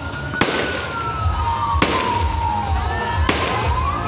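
Aerial fireworks shells bursting: three sharp bangs about a second and a half apart. Under them a siren wails slowly up and down.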